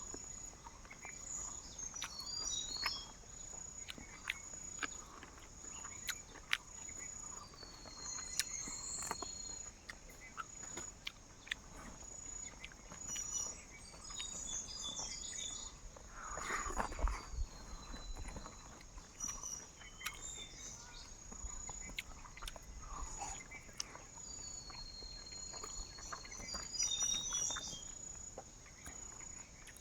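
Forest ambience: insects trilling steadily at a high pitch, with a few whistled bird calls gliding in pitch. Scattered short clicks and knocks, and a louder rustle about seventeen seconds in.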